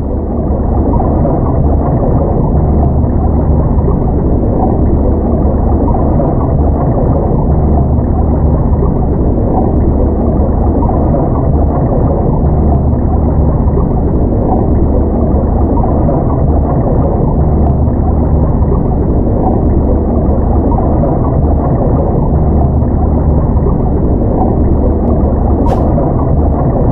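Muffled, steady rush of stream water heard underwater, with a deep low rumble; it fades in at the start.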